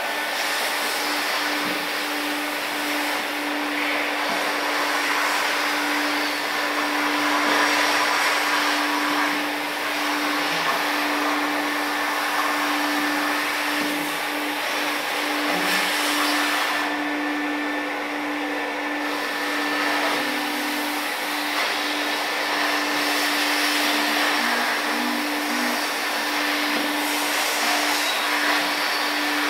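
Vacuum extraction machine running steadily: a constant motor hum over a rush of air through the nozzle as it is worked over brickwork for desalination. The hiss thins for a couple of seconds past the middle.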